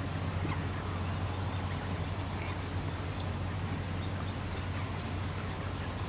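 Steady, high-pitched trilling of an insect chorus (crickets or cicadas), unbroken throughout, over a low steady hum, with a few faint short chirps.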